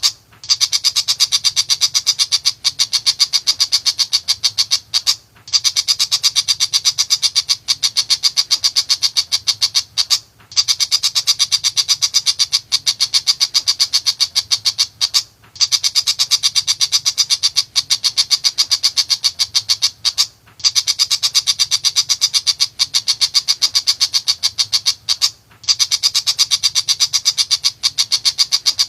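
Tiger shrike (pentet macan) chattering: a fast, even string of sharp notes, in runs of about five seconds broken by short pauses.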